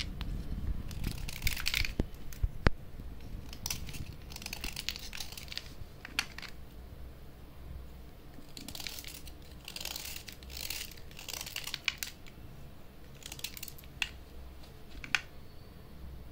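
Knife blade scraping the wetted outer layer off slate pencils in irregular rasping strokes, with a few sharp clicks among them.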